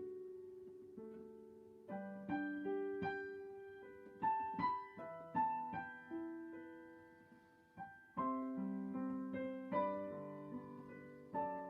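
Solo piano playing slow chords and a melody, each struck note dying away.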